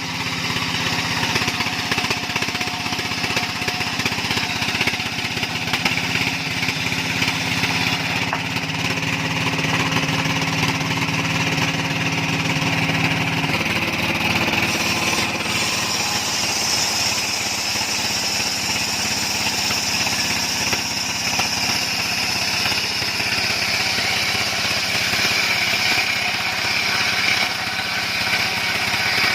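Engine-driven sawmill running steadily, its tone shifting about halfway through.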